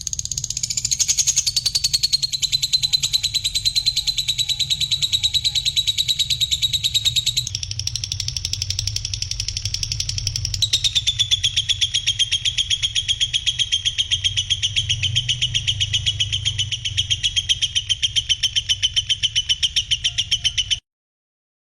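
A songbird singing one long, continuous rapid trill, shifting pitch twice, over a steady low hum; it cuts off abruptly near the end.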